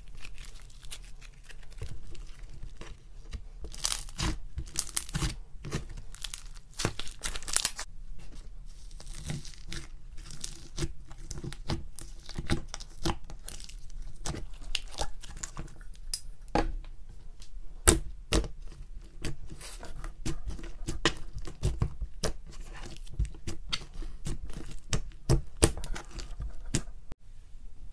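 Slime being stretched, kneaded and poked by hand: a dense, irregular run of sticky crackles, small pops and tearing sounds as the slime pulls apart and air pockets burst.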